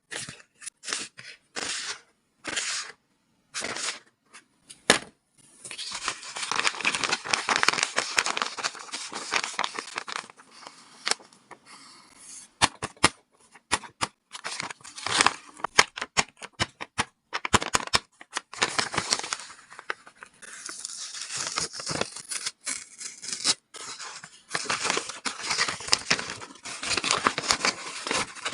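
Paper craft being handled: paper and tape crinkling, tearing and being snipped. A string of short sharp taps in the first few seconds gives way to longer stretches of rustling and tearing with scattered clicks.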